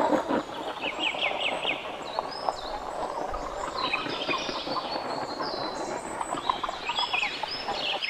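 Sound-designed call for the dinosaur Guanlong wucaii made of bird-like chirps: a quick run of short falling chirps about a second in, then more falling chirps from about four seconds on, over a steady noisy background.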